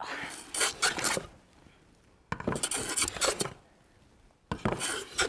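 A large jointer hand plane shaving across a maple cutting board: three scraping strokes, each about a second long, roughly two seconds apart.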